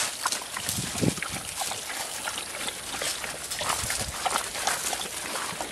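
Several dogs moving about on gravel, with scuffing and small clicks and a few short low sounds from the dogs.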